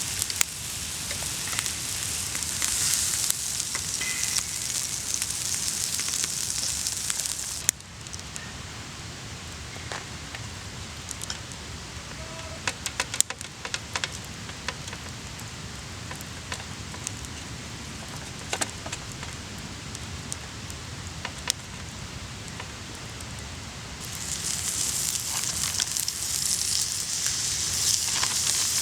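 Steak sizzling on an iron griddle plate over a campfire, a dense hiss. Partway through it cuts abruptly to the quieter crackle of the campfire with scattered sharp pops, and near the end the sizzling returns.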